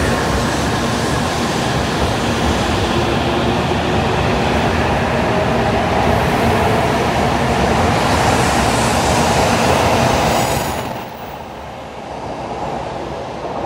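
N700 series Shinkansen departing and gathering speed past the platform: a steady rush of wheels on rail and running gear with a hum of steady tones from the traction motors. The sound drops off sharply about eleven seconds in as the last car goes by, leaving a fainter fading rumble.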